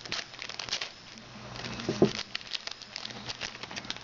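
Trading card pack wrapper being torn open and crinkled, with cards shuffled out: irregular sharp crackles and rustling. A short vocal sound about two seconds in.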